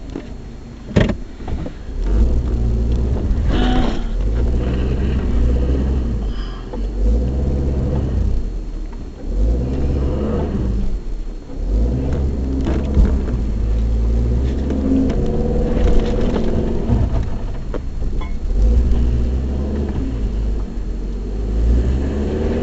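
Toyota RAV4 driving up a snowy dirt trail, heard from inside the cabin: a low rumble of engine and tyres that swells and eases, with a few sharp knocks from the bumps.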